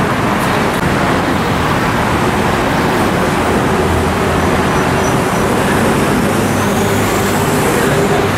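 Steady road traffic noise, a continuous wash of passing vehicles. A steady low hum joins about three seconds in.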